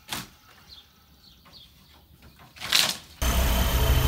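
A sharp knock and scrape of a pry bar on old wooden siding, then a quiet stretch with faint bird chirps and a second short scrape. Near the end the sound cuts to a telehandler's engine running steadily, the loudest part.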